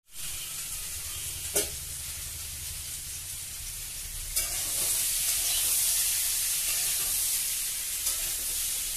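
Vegetables sizzling as they fry in a metal wok, with a single knock about a second and a half in. The sizzle grows louder and brighter about four seconds in.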